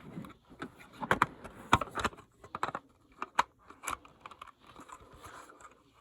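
Irregular sharp clicks and light knocks of small hard objects being handled and set down, busiest for the first four seconds and then thinning out.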